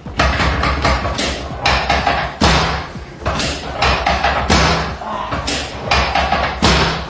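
A series of sharp thumps and knocks, roughly one every half second to a second, over a low steady bass tone.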